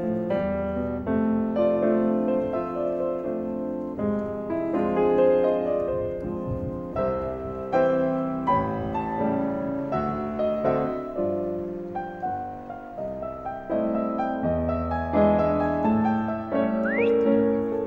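Piano music playing as a soundtrack, a continuous run of notes.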